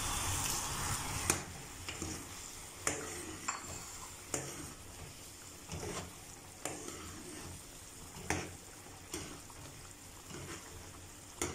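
Metal spoon stirring fried chicken pieces into simmering red gravy in a non-stick pan, knocking against the pan about once a second over a soft hiss of the simmering sauce.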